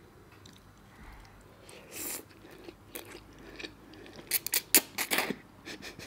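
Noodles slurped up from chopsticks, a quick run of loud slurps about four to five seconds in, with quieter chewing before it.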